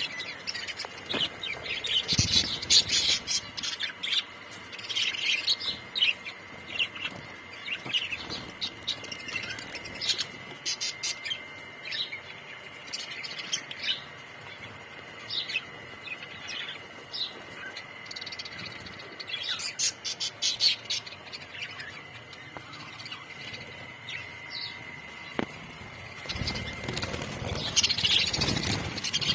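A colony of budgerigars chirping and warbling, many short high calls overlapping, busiest about two seconds in, around the middle and near the end, over a faint steady high tone.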